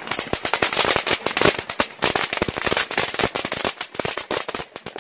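Garden firework fountain spraying sparks, with a dense run of sharp crackling pops. The pops thin out and get quieter near the end.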